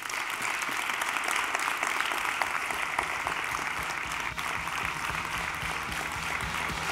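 Audience applauding, steady and sustained.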